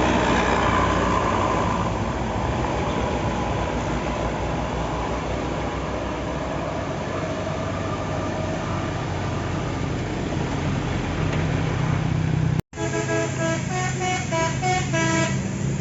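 Heavy vehicle engine and road noise as traffic passes. After a cut about thirteen seconds in, a bus's multi-tone 'basuri' telolet horn plays a quick tune of stepped notes over the running engine.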